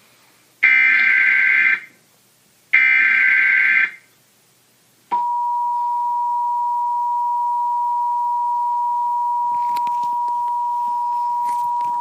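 Emergency Alert System tones for a Required Monthly Test: the last two of the three digital SAME header bursts, each about a second long with a short gap between them. After a pause, the steady two-tone EAS attention signal (853 and 960 Hz) starts about five seconds in and holds.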